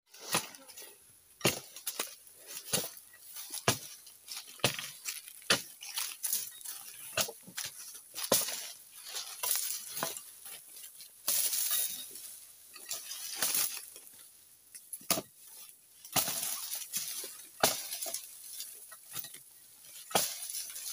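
A steel pruning chisel (dodos) on a long wooden pole being driven into oil palm frond bases, sharp chopping blows coming about once a second, with a longer rushing, scraping stretch about eleven seconds in. A steady high hiss sits behind it.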